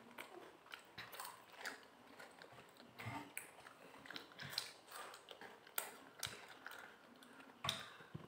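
Faint crunching and chewing of Kit Kat wafer pieces: small bites and chewing, heard as scattered crisp clicks at irregular moments.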